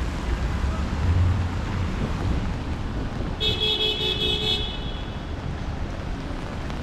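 Wet city street traffic, a steady hiss and low rumble of passing vehicles; about three and a half seconds in, a vehicle horn sounds for about a second.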